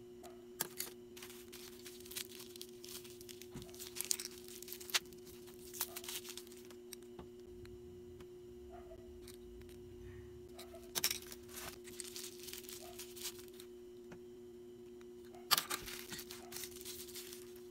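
Packaging being handled and torn: bouts of crinkling and rustling, three times, over a steady two-tone hum.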